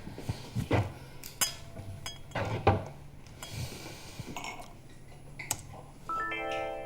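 Wine glasses and a bottle clinking and knocking against each other and a hard surface: several sharp clinks spread through the seconds. Near the end a short tone with several pitches at once sounds for under a second.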